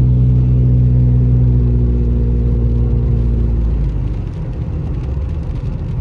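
Car engine and road noise heard from inside the cabin while driving on a rain-wet road. A steady engine drone fades out about four seconds in, leaving a rougher low rumble from the tyres and road.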